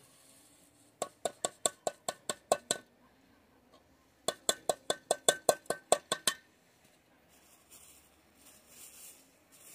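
Small metal cup clinking rapidly as an oil mixture with sugar crystals is mixed in it. There are two runs of about a dozen quick, ringing strikes, a second or two apart.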